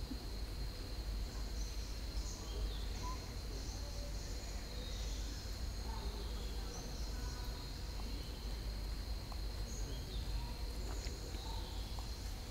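Forest ambience: a steady high-pitched insect drone throughout, with scattered short bird chirps and a constant low rumble underneath.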